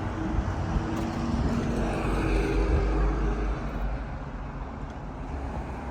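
Steady low background rumble of vehicle traffic, with a faint hum in the first second and a half.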